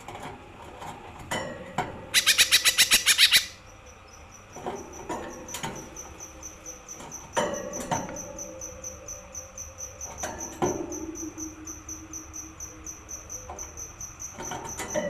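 Small green leafbird (cucak ijo mini) singing: a loud, very fast trill of about ten notes a second near the start, then scattered shorter calls. A steady high pulsing chirp runs under the second half.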